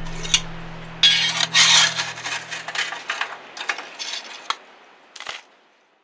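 Stainless steel draft door at the base of a Monolith kamado slid open and the metal ash pan drawn out, a run of metal scraping and rattling with clinks, the last sharp clink a little after five seconds.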